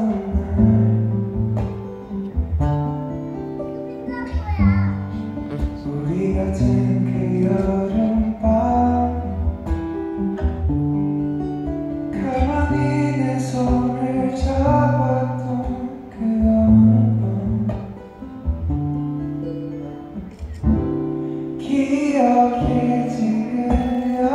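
A man sings a slow song live into a microphone while accompanying himself on an acoustic guitar. The vocal lines are long and held over a steady run of guitar notes.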